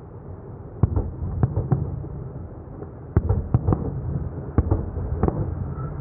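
Fireworks display: aerial shells bursting, about a dozen sharp bangs in three quick clusters, with a low rumble carrying on between them.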